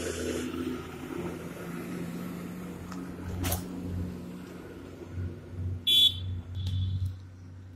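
Road traffic: heavy vehicle engines running with a steady low hum, and a motorcycle passing. A short shrill tone sounds about six seconds in, the loudest moment.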